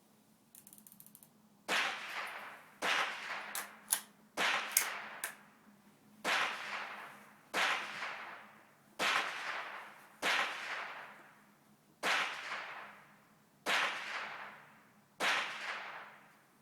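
A string of about ten gunshots, fired roughly one every one and a half seconds, each a sharp crack followed by about a second of echo dying away. A few fainter cracks fall between them near the start, and a short rattle comes just before the first shot.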